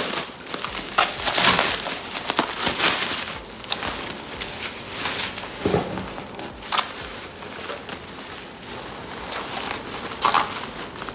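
Clear plastic film and bubble wrap being peeled off and unrolled by hand: irregular crinkling and rustling, busiest and loudest in the first few seconds, then sparser.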